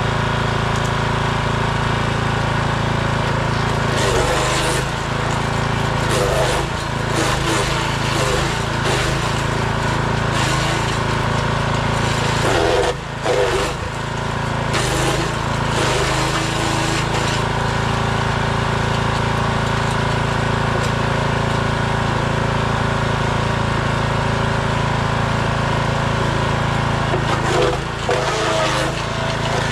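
Forest Master FM6DD compact wood chipper's 6 hp engine running steadily, with its throttle stop turned down by the owner. Branches are fed through at intervals, making bursts of crackling, rattling chipping over the engine, mostly in the first half and again near the end. The engine note dips briefly under the load.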